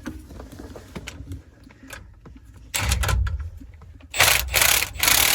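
Cordless impact wrench hammering on a bolt through an extension in three bursts, the last one the longest, after a few light metal clinks. The bolt is not breaking loose: the hammering is being lost in the extension.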